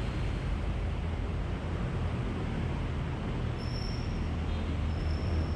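Steady road-traffic rumble of passing vehicles. About three and a half seconds in, a faint, thin, high-pitched whine joins it on and off.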